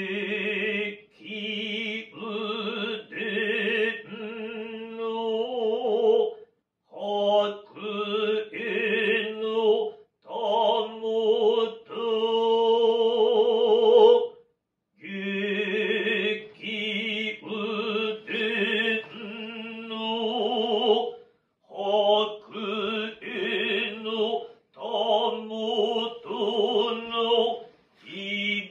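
A man's voice chanting Noh utai in the Kanze style, unaccompanied: long held phrases with a wavering pitch, broken by short pauses for breath about every four to seven seconds, the loudest held note coming about halfway through.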